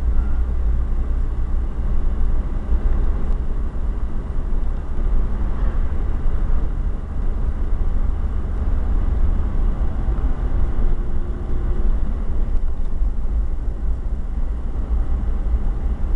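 Car driving along a sealed road, heard from inside the cabin: a steady rumble of road, engine and wind noise, heaviest in the low bass.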